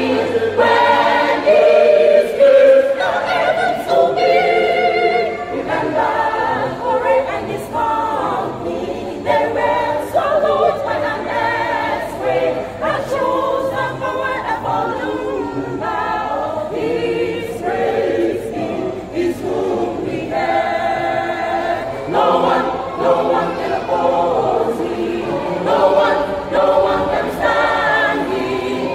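Church choir of about 27 voices singing a gospel choral piece, continuously throughout.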